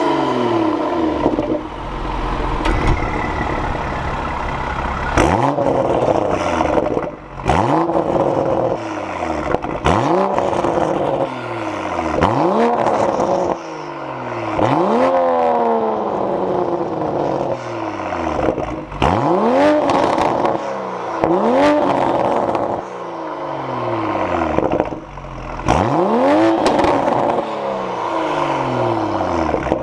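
Toyota GR Supra (MK5) engine fitted with a catless downpipe, revved about a dozen times in quick succession: each rev climbs sharply, then falls back more slowly, with the exhaust loud throughout.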